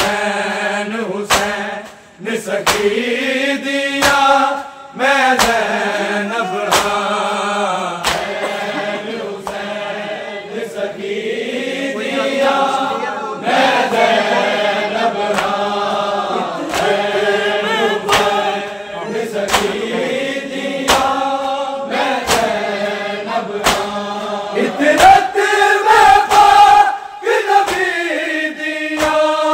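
Male noha reciters chanting a Punjabi noha (mourning lament) together in long, drawn-out lines, accompanied by sharp, regular slaps of matam (hand chest-beating) that keep a steady beat. The chanting grows loudest near the end.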